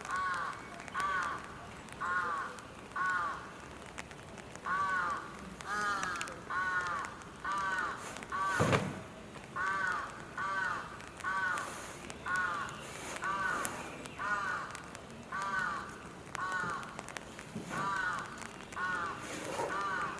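A bird calling over and over, about one short arched call a second, in a long steady series. A single sharp knock about nine seconds in is the loudest moment.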